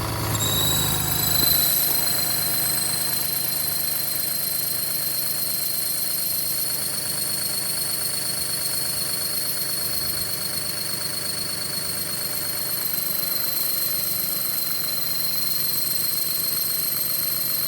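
Car engine idling steadily, with a constant high-pitched squeal or whistle riding over it. The uploader traces this squeal to an exhaust leak at the manifold gasket.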